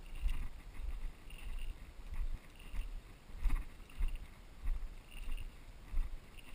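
Footsteps of people walking up a dirt road: a steady series of low thumps, about one step every 0.6 seconds.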